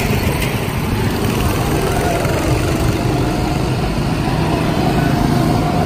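Go-kart engines running steadily as karts drive past on the track.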